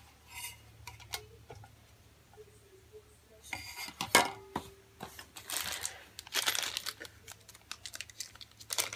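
Handling noise from ceiling fan parts as the down rod's set screws are finger-tightened into the motor housing: a few faint clicks at first, then from about three and a half seconds in sharper clicks of metal parts and bursts of rustling.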